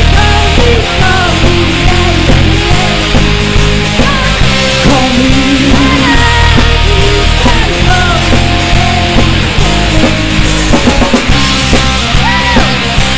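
Loud rock music with drums and bass under a lead melody that slides and bends in pitch.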